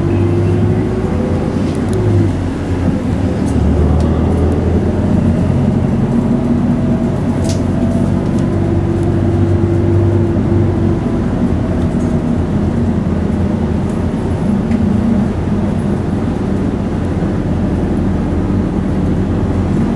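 Hino Blue Ribbon city bus engine running under way, heard from inside the passenger cabin, with road noise. The engine note rises, then breaks off with a short dip about two seconds in, as at a gear change, and its pitch shifts several more times as the bus drives on.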